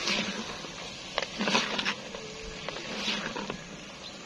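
Slotted metal spatula stirring and scraping vegetables around a clay pot, in a few short scraping strokes with light clicks against the pot, over a faint sizzle.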